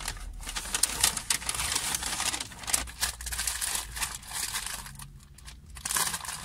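White paper takeaway bag crinkling and rustling as it is picked up and opened by hand: a quick, irregular run of crackles, easing off for a moment about five seconds in.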